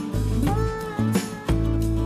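Instrumental background music led by plucked guitar, with sliding notes over steady bass.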